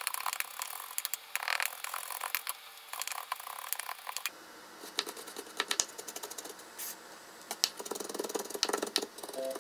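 Kitchen knife chopping onion on a mango-wood cutting board: quick, uneven runs of sharp knife taps against the board.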